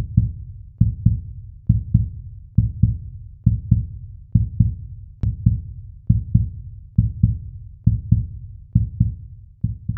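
Heartbeat sound effect: pairs of low thumps, lub-dub, repeating a little more often than once a second, about 70 beats a minute.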